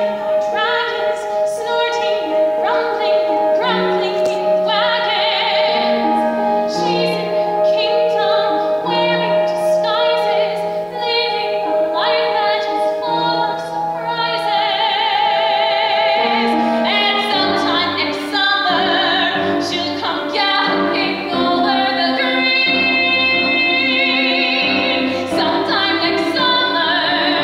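A woman singing a musical theatre song in a classically trained style, with vibrato on held notes, accompanied by a grand piano. The piano's bass fills out about two-thirds of the way through.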